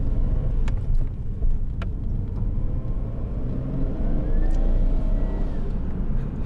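Nissan Skyline R32 GTS-t's RB20DET twin-cam turbocharged straight-six under hard acceleration, heard from inside the cabin. Its revs climb steadily for about four seconds, then break off near the end. Two sharp clicks come in the first two seconds.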